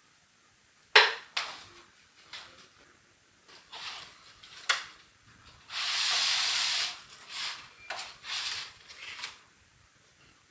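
Household handling sounds: a few sharp clicks and knocks, then a steady hiss lasting about a second midway, followed by shorter rustles.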